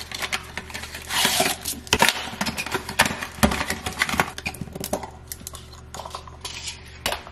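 Plastic baby bottles being pulled from their cardboard boxes and handled on a counter: a rustle of cardboard about a second in, then a run of light plastic clicks and knocks as bottles and parts are set down and fitted together.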